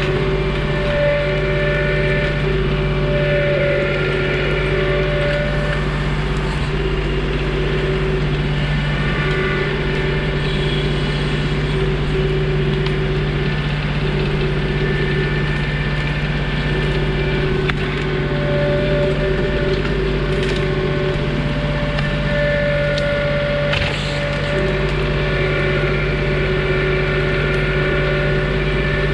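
John Deere 2032R compact tractor's three-cylinder diesel engine running steadily, with a higher whine that starts and stops several times. A few sharp knocks come in the second half.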